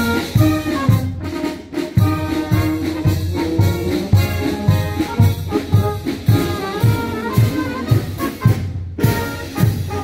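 Brass band playing a march: held chords over a steady low beat of about two strokes a second.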